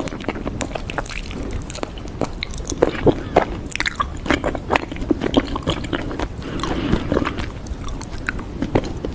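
Slime being worked by hand, making dense, irregular sticky crackles and clicks that sound like chewing.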